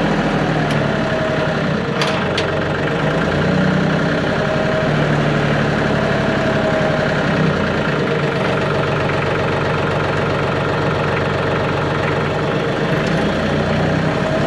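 TYM compact tractor's engine running steadily, its low note shifting slightly now and then, with a sharp click about two seconds in.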